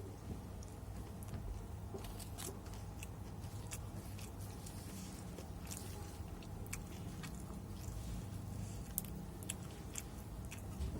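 A person chewing and biting on fried chicken with sambal matah, eaten close to the microphone, with many short, wet mouth clicks over a low steady hum.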